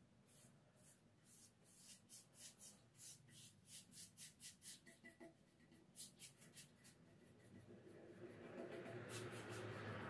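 Faint, quick scratchy swishes of a paintbrush stroked along a handrail, about three strokes a second, brushing on a second coat of paint. Near the end a duller rushing sound swells up.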